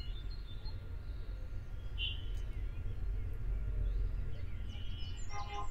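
A few faint bird chirps, about two seconds in and again near the end, over a steady low rumble.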